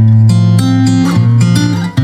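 Background music: a strummed acoustic guitar playing chords, part of a Korean-language pop song.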